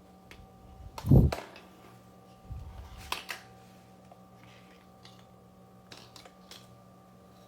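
Handling noises over a faint steady electrical hum: a loud low thump about a second in, a brief rumble, then a few light clicks.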